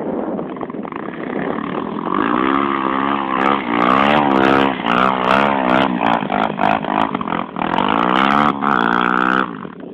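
Trail motorcycle engine revving hard, its pitch climbing and falling again and again from about two seconds in, then dropping away just before the end.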